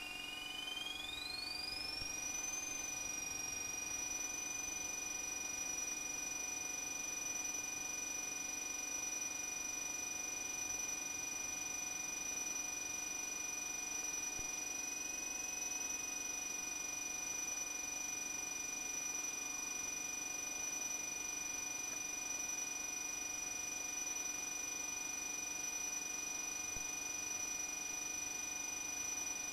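Whining tones in the RV-9A's recorded intercom audio as the engine goes to full takeoff power: one tone rises over the first two to three seconds, then it and a lower tone hold steady through the takeoff run and climb-out, over a faint hiss.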